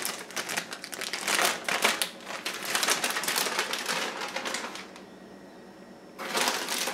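Plastic bag of shredded cheese crinkling and rustling as the cheese is shaken out over a slow cooker, a dense rapid crackle that stops about five seconds in, with another short burst of crinkling near the end.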